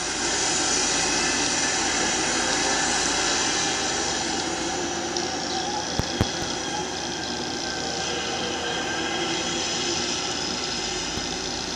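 Bus running along the road: steady engine and road noise with a faint high whine, and two short clicks about six seconds in.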